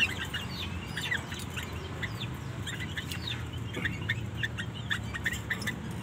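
Caged songbirds in an aviary chirping: many short, high chirps and quick sweeping calls, overlapping and irregular, over a low background hum.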